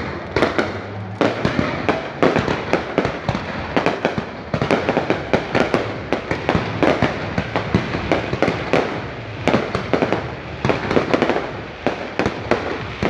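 Aerial fireworks display: a continuous barrage of bangs, several a second, overlapping without a pause.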